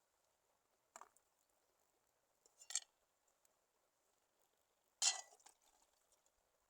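Three short clinks of camp cookware or utensils being handled, about one, three and five seconds in, the last the loudest with a brief ring.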